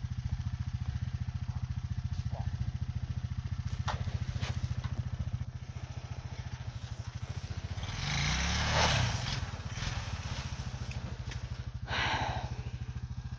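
Quad ATV engine running steadily at low speed, revving up briefly about eight seconds in and surging again near the end.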